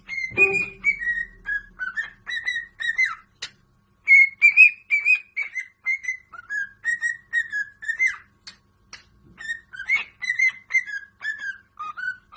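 A pet bird whistling a melody: short, clear notes that slide up and down, in three phrases with brief pauses between them.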